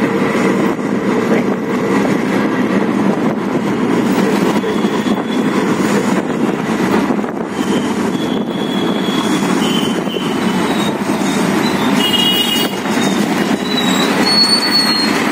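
Auto-rickshaw running through city traffic, heard from inside its open cabin: a steady engine and road noise, with a few brief high tones in the second half.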